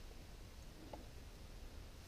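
Quiet background: a faint steady low rumble with a small click a little under a second in.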